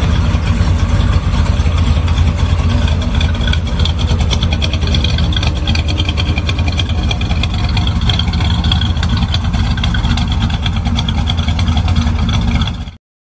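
454 cubic-inch big-block V8 of a 1982 GMC pickup idling steadily through its side-exit exhaust, with a deep pulsing note. It cuts off suddenly near the end.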